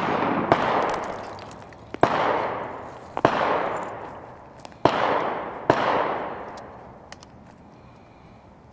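Gunshots from shotguns elsewhere on the range: five reports in about five seconds, each followed by a long rolling echo that dies away over a second or more.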